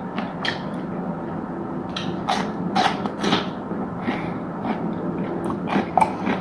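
Close-miked eating sounds: a person chewing and crunching food, with irregular crisp crunches, the sharpest a few seconds in and near the end.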